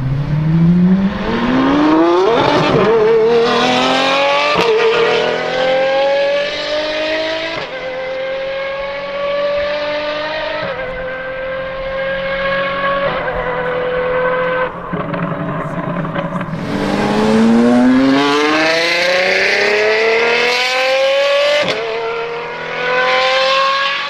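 Straight-piped, naturally aspirated V12 of an Apollo IE accelerating at full throttle. Its pitch climbs sharply, then rises in steps through several gear changes with a short break at each. About two-thirds of the way through it drops back and climbs steeply again.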